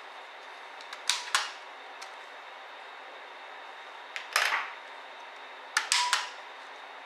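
Small hard clicks and clatter of laptop parts and tools being handled during disassembly, in three short clusters about a second, four seconds and six seconds in, over a steady hiss.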